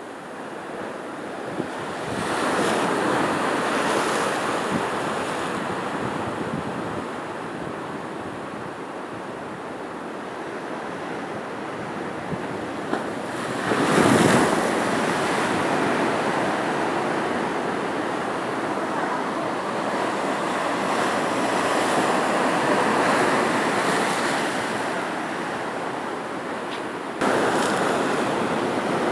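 Sea waves breaking and washing onto the shore, the surf swelling and ebbing several times, the loudest wave about halfway through, with wind.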